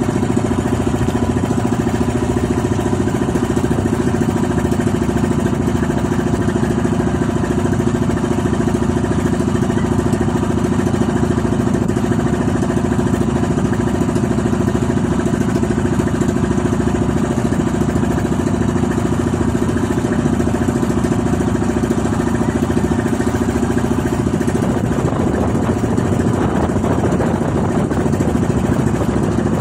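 Outrigger boat's engine running steadily, heard from on board. About 25 seconds in its note shifts and sounds fuller.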